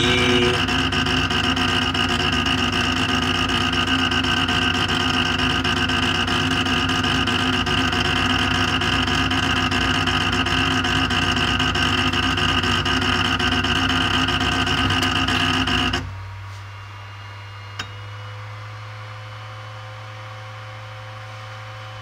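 Creality Ender 5 Pro's Z-axis stepper motor grinding with a steady multi-tone buzz, straining against a Z axis that is locked with the bed all the way up near the extruder. The grinding cuts off suddenly about 16 seconds in, leaving the printer's low steady hum and one faint click.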